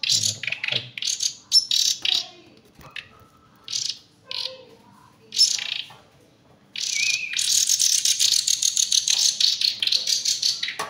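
Nightingale chicks giving high begging chirps while being hand-fed: short bursts over the first few seconds, then a continuous stream of rapid chirping from about two-thirds of the way in.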